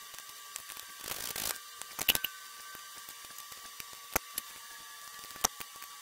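Sparse metal clicks and knocks of hand tools on a motorcycle's foot-peg mount as it is being unbolted, with a short scraping rustle about a second in.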